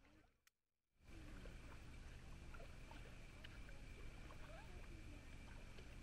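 Faint outdoor ambience that comes in about a second in after near silence: a low steady rumble, a thin steady high tone, and scattered faint short calls bending in pitch.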